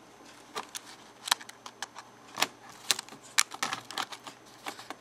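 Irregular sharp plastic clicks and taps from fingers handling a Dell Latitude D430 laptop's new keyboard and working its ribbon connector into the socket.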